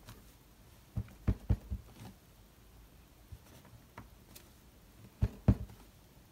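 Clear acrylic stamp block knocking down on cardstock on a tabletop while a rubber stamp is pressed and repositioned: a quick run of four knocks about a second in, and two more near the end.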